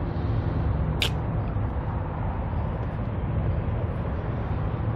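Steady low rumble of road traffic, with one brief high hiss about a second in.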